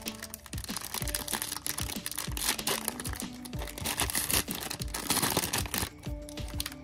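Plastic wrapper of a Donruss football card value pack crinkling as it is handled and torn open by hand, with background music underneath.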